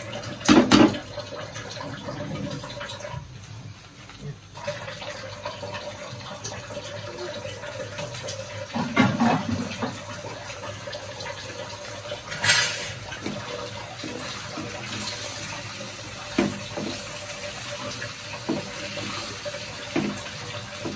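Broccoli, potato and tomato curry frying in oil in a pan, a steady sizzle, with a spatula knocking against the pan now and then, loudest about half a second in and again around nine and twelve seconds.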